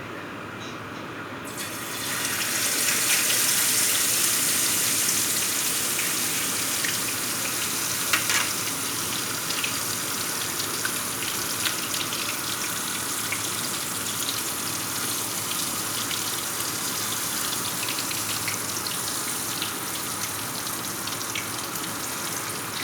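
Marinated tuna sizzling in hot oil in a frying pan. A loud hiss starts suddenly about a second and a half in, then eases off gradually, with scattered pops and crackles.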